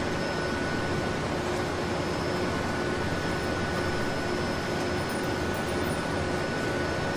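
Steady factory-hall noise of a car assembly line: an even hiss and hum of ventilation and line machinery, with a few faint steady tones running through it.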